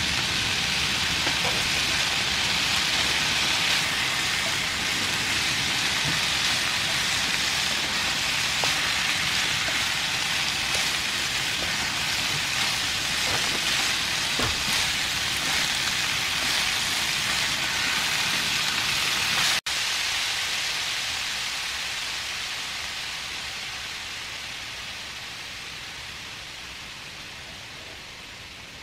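Stir-fried bracken fern and vegetables sizzling steadily in an oiled pan on low heat, with a few faint taps of the utensils. About two-thirds through the sound cuts out for an instant, then fades slowly away.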